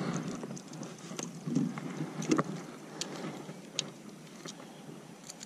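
A small largemouth bass being netted beside a small boat and lifted aboard in a landing net: water splashing, with several light knocks of the net and fish against the boat, over the lap of water on the hull.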